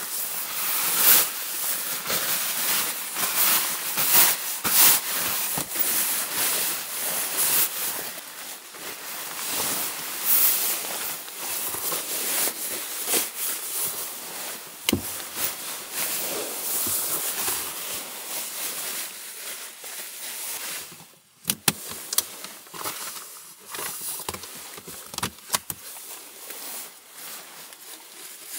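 Sleeping bag fabric rustling and crinkling with many small sharp clicks as a person wriggles into it. Most of the way through, the rustling eases to quieter crinkles and scattered clicks.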